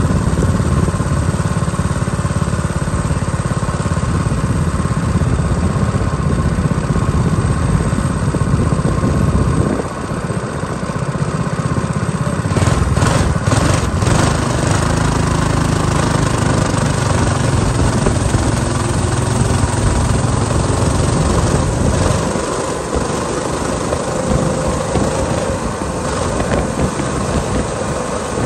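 Coleman minibike's small single-cylinder four-stroke engine idling steadily at a stop, with a brief dip about ten seconds in. A car passes around the middle. After about 22 seconds the engine's low note drops and the sound turns to steadier riding noise as the bike moves off.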